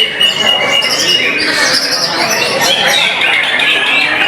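Caged competition songbirds singing loudly at a bird-singing contest: several birds at once in a dense, continuous jumble of overlapping whistles, chirps and trills.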